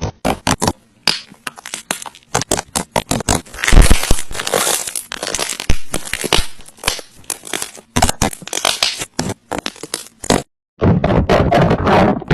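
Slime being squeezed and pressed by hand, giving dense, irregular crackling and popping. It stops about ten seconds in, and after a brief gap a fuller, steadier sound begins.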